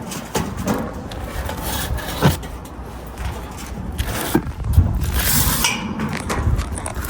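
Hard objects clinking, scraping and knocking against each other, with two sharper knocks, one a little over two seconds in and one near five seconds in.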